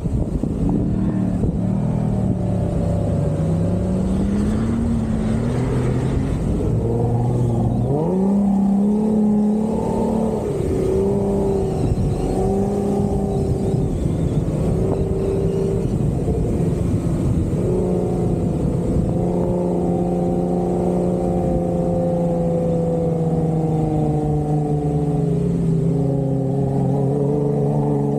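Jeep Wrangler engine working off-road. Its pitch wavers up and down, then the revs climb sharply about eight seconds in. In the last third it holds a steady drone that slowly sinks.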